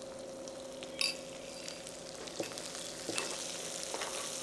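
Chopped shallots and coconut slivers sizzling in hot sesame oil in a pan, with a metal spoon stirring and scraping them. There are a few sharp scrapes, the loudest about a second in.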